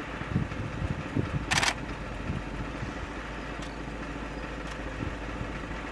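A car engine idling steadily, with a short hiss about a second and a half in.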